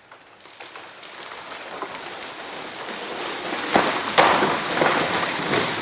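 A dead ash tree coming down: a rising crackle and swish of breaking branches, with heavy crashes about four seconds in as it hits the ground.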